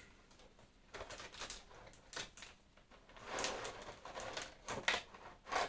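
Plastic packaging and tape on a boxed figure being handled: scattered crinkles, rustles and sharp clicks, busiest in the second half.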